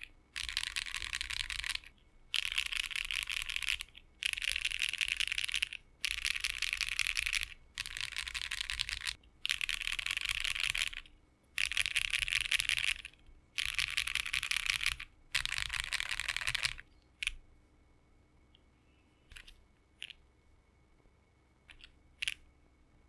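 Fast typing on a 60% custom mechanical keyboard with JWK Black linear switches, an FR4 plate and a gummy O-ring mount. The keystrokes come in quick runs of about a second and a half with brief pauses between them. After about 17 seconds only a few single key clicks remain.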